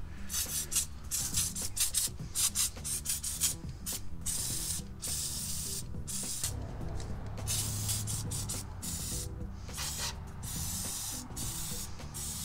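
Aerosol can of engine degreaser spraying in repeated bursts: a quick string of short squirts in the first few seconds, then longer sprays with brief pauses between them.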